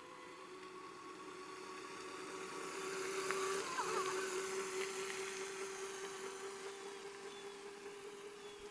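Small moped engine running with a steady whine, growing louder as it approaches, passing close about three and a half seconds in, then fading as it rides away.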